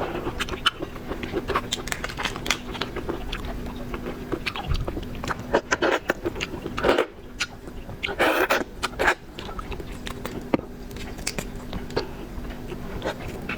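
Close-miked eating of raw shrimp: crunching, chewing and wet clicking, with a couple of longer, louder crackling bursts about seven and eight seconds in.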